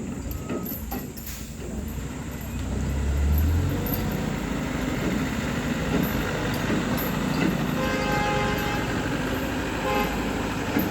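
Motor traffic running, with a heavy low rumble swelling about three seconds in and a vehicle horn sounding near the end.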